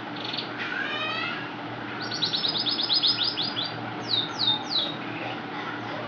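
Male canary singing: a short trill, a few rising notes, then a fast rattling trill of about eight notes a second, and three quick downward-sweeping whistles. A faint steady hum lies underneath.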